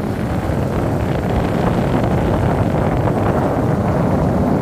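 Steady rush of wind buffeting the microphone, with a vehicle running underneath it while travelling along the road.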